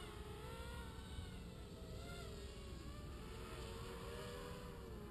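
Distant whine of an FPV racing quad's four brushless motors (Sunnysky 2204 2300kv) and 5-inch props, faint, its pitch wavering up and down as the throttle changes.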